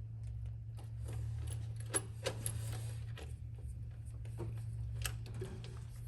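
Scattered light clicks and taps from hand work on the nest's metal switch hardware, over a steady low hum. The sharpest clicks come about two seconds in and again near five seconds.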